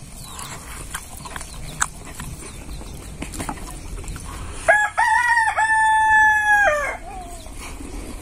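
A rooster crowing once, about five seconds in. It gives a few short notes, then a long held note that drops in pitch at the end, with faint small clicks before it.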